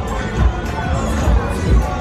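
Pop music with a thumping bass beat, over crowd noise.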